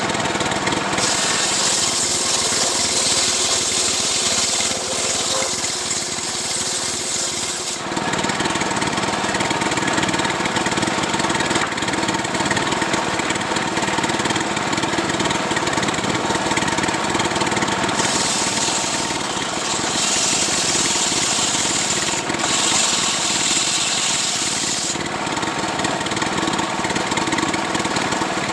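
Two-stroke chainsaw running steadily while cutting a coconut palm trunk lengthwise into a beam. Stretches of harsher hiss come as the chain bites into the wood, for several seconds early and again in the second half.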